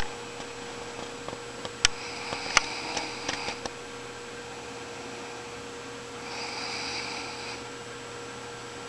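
A woman snoring in her sleep, a slow breath about every four seconds. Two sharp clicks come about two seconds in, with a few smaller ones just after.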